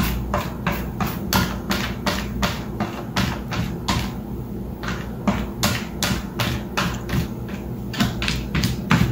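Rapid plastic clicking and tapping, about four or five clicks a second, as a cat bites and paws at the snap latch of a plastic storage bin. The clicking stops for about a second near the middle, then starts again.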